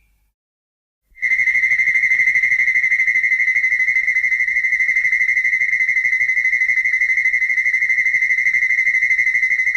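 King Ghidorah's electronic trilling call from the Godzilla films: a single high synthesized tone held at one steady pitch, pulsing rapidly about ten times a second. It starts about a second in, after silence, and holds without a break.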